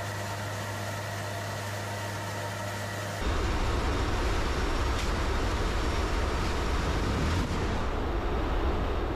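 Steady, even drone of a C-130 transport's propeller engines. About three seconds in it changes abruptly to a louder, rough low rumble.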